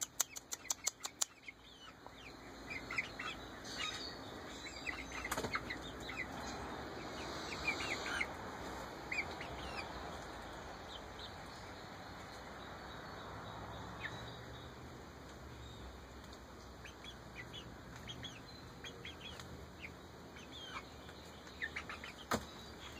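Young Ameraucana chickens, about eight weeks old, giving short high peeps here and there, with a quick run of wing flaps in the first second or so as a bird flutters.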